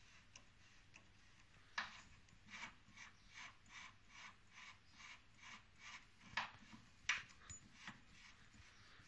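Faint metal clicks and rubbing from a fabricated suspension upright and its rose-jointed arms being moved by hand. A run of soft, evenly spaced ticks, about two or three a second, is followed by a couple of sharper clicks.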